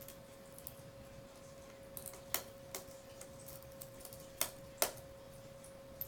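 Small sharp clicks and taps from hands handling the Dell Inspiron 1720 laptop's casing at the hinge area during reassembly: a few around two seconds in and two more near five seconds. A faint steady hum runs underneath.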